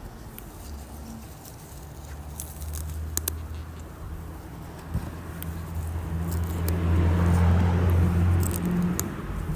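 A motor vehicle's engine hum, swelling louder from about six seconds in and easing off near the end, with scattered small clicks and crackles over it.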